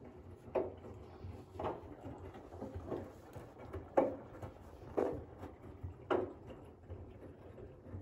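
Front-loading washing machine tumbling a load of laundry: a soft thud about once a second as the wet load drops in the turning drum, over a low steady hum.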